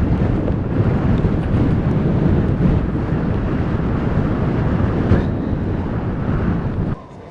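Strong blizzard wind buffeting the microphone: a loud, steady low rumble that cuts off abruptly near the end.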